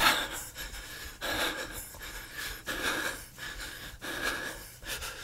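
Soft, irregular breaths close to the microphone, a faint puff about every half-second to second.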